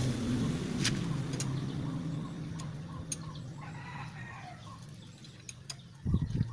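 A rooster crowing, one call in the middle that falls away at its end, with a few sharp clicks near the start and low thumps near the end from parts being handled on a small generator engine.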